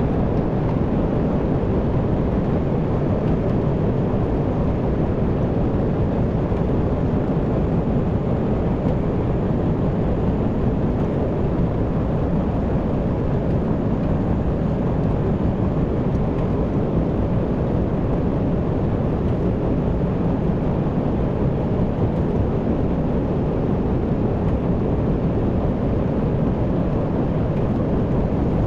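Tractor engine running steadily: a constant low rumble with no breaks or changes.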